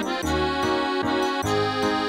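Background music: a melody over bass notes with a steady beat.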